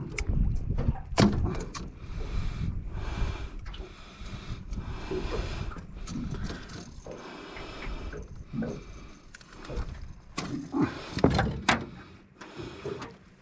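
Irregular knocks, clicks and rattles of a freshly netted brown trout and tackle being handled in a small aluminium boat, over a low rumble.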